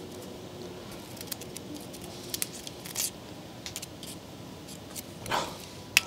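A thin screwdriver scraping and picking at rock-hard carbon deposits inside a diesel heater's burn chamber: scattered faint scratches and small clicks, with a slightly longer scrape near the end.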